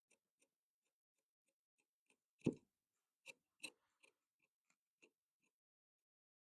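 Tailor's work sounds on a cutting table: a scatter of small, irregular clicks and taps from tools being handled, with one louder thump about two and a half seconds in, like a tool set down.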